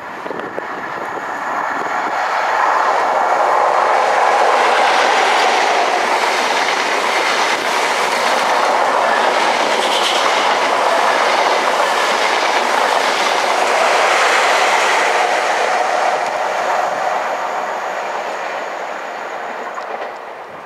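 East Coast InterCity 125 high-speed train, two diesel power cars and Mark 3 coaches, passing the platform at speed: the rush of wheels on rail builds over the first few seconds, stays loud while the coaches go by, and fades near the end as the rear power car draws away.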